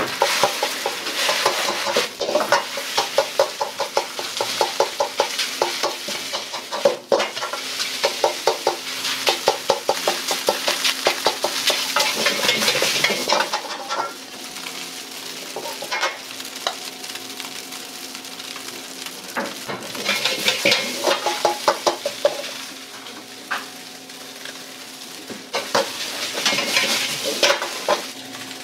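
Egg fried rice stir-fried in a wok over a gas burner: a metal ladle clanks and scrapes rapidly against the wok in bursts over a steady sizzle, easing off for a few seconds in the middle.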